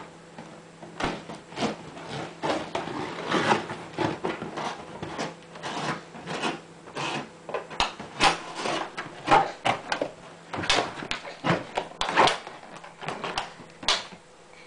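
Large duct-taped cardboard box being torn and pulled open: a string of short, irregular scrapes, rubs and rustles of cardboard and tape.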